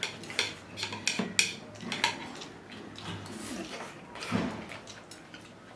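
Eating utensils clicking and clattering against dishes: a run of short, sharp clicks, thick for the first two seconds, then fewer and further apart.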